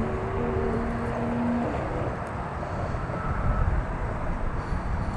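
Low outdoor rumble, with a steady engine hum that stops about two seconds in.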